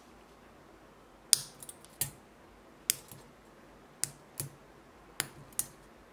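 Homemade capacitor-bank spot welder charged to 16 volts discharging through brass electrode tips into a metal strip on a battery terminal, giving seven sharp electric snaps at irregular intervals. Each snap is one weld pulse, with sparks thrown off. The first is the loudest.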